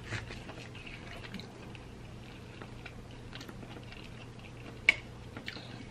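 Steak knife sawing through a cooked ribeye steak on a plate, with faint scraping and light clicks of knife and fork against the plate and one sharper click near the end.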